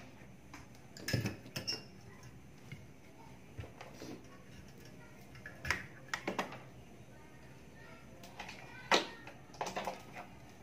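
Scattered light clicks and knocks of a soldering iron and its cable being handled and set into a metal iron stand, a handful of separate taps spread out with quiet between them.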